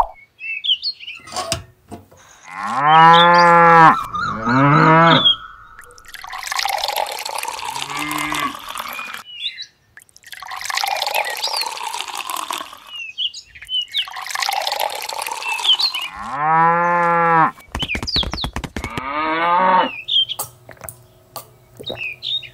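Cattle mooing: two long moos close together, then the same pair again later. Between them, water pours and splashes into a small trough.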